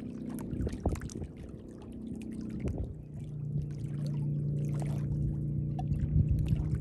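A steady low engine hum that grows louder about three seconds in, with scattered small clicks and knocks over it.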